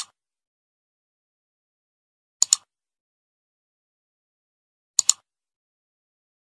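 Computer mouse-click sound effect, three times about two and a half seconds apart, each a quick double tick of press and release, with silence between.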